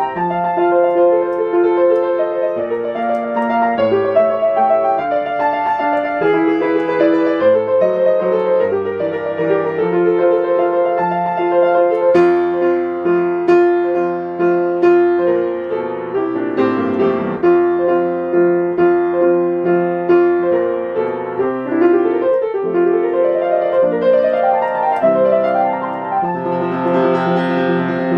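Background piano music: a gentle melody over sustained chords, with quick rising runs of notes in the second half.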